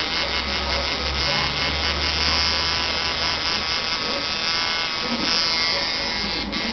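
Electric tattoo machine buzzing steadily, cutting out near the end.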